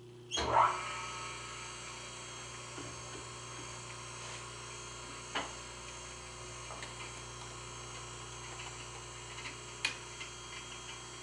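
Taft Peirce surface grinder switched on about half a second in: the spindle motor and grinding wheel come up to speed and then run steadily with a high whine, ready for dressing the wheel. A couple of light clicks sound over it later on.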